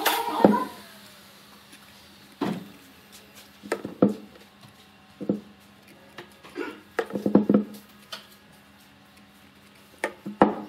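Scattered sharp knocks and taps of a wooden log slice with dowel pegs and a plastic glue bottle being handled and set down on a wooden workbench, about a dozen in all with a quick cluster a little past the middle, over a faint steady hum.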